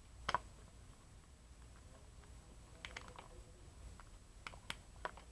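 Faint, scattered clicks and light taps from a phone and USB charging cable being handled. There is a sharp double click about a third of a second in, a short cluster of clicks around the middle, and a few single clicks near the end.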